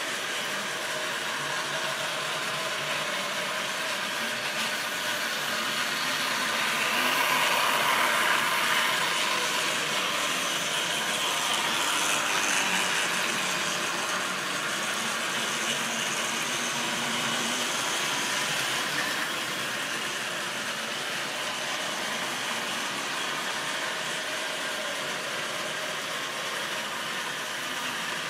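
OO gauge model train running on its track: a steady mechanical running noise of motor and wheels on rails, growing louder as a rake of tank wagons passes close by about a quarter of the way in, then easing back.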